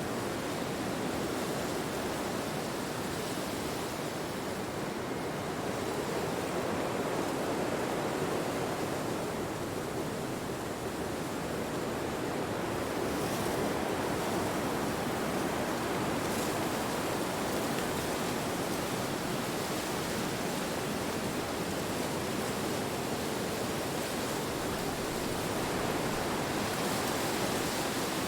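Wind blowing: a steady rushing sound that swells and eases slowly.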